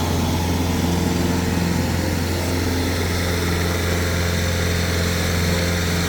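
Tractor engine running steadily at a constant speed, a low hum that holds level throughout.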